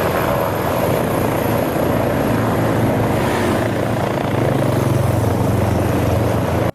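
Helicopter sound effect: rotor chop and engine running steadily with a fast, even flutter. It starts and cuts off abruptly, as an edited-in clip.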